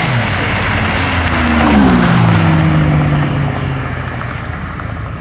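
Car engines at full throttle in a dig race between a Mazda RX-7 and a turbocharged Firebird. The engine pitch drops sharply at the start and again about a second and a half in, as at gear changes. It then slides slowly lower and fades as the cars pull away.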